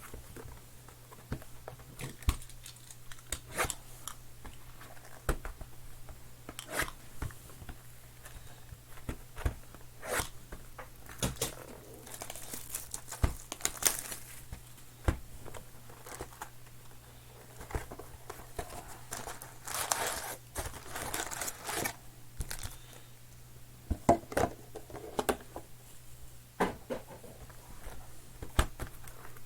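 Trading card pack wrappers being torn open and crinkled, with short clicks and rustles of cards being handled; longer bursts of tearing about twelve and twenty seconds in.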